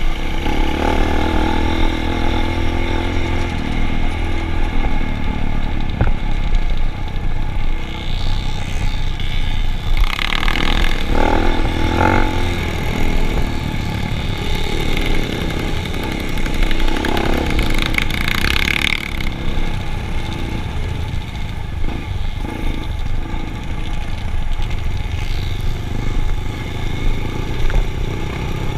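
Motor vehicle engines running steadily, with a few louder stretches about a third and two thirds of the way through.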